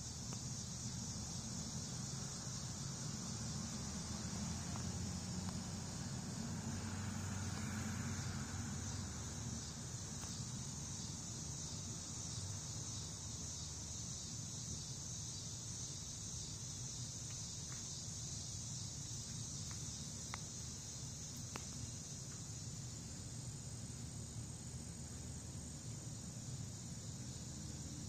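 Steady high-pitched chorus of crickets chirping, over a low steady rumble.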